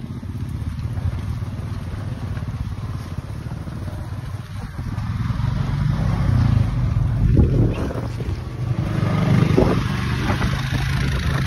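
Quad bike and farm utility vehicle engines running at low speed close by. They grow louder over the second half as the vehicles come past.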